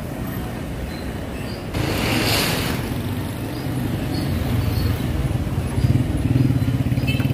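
Street traffic with a motorcycle engine running, its low rumble growing louder and pulsing in the second half. A brief hiss about two seconds in.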